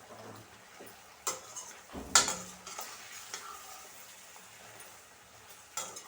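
Chicken pieces frying in oil, stirred in the pan: a faint sizzle with a utensil scraping and knocking against the pan several times, the loudest knock about two seconds in.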